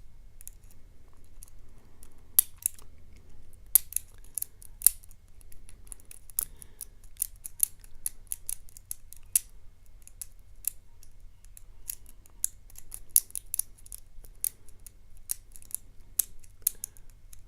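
Lock pick and tension wrench working a Yale euro cylinder lock's pins: irregular, sharp metallic clicks and scrapes, a few louder snaps among them, as the pin tumblers are raked and set.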